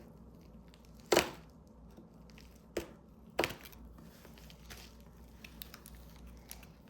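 Three sharp clicks or knocks, the loudest about a second in and two more near the three-second mark, over a faint steady low hum.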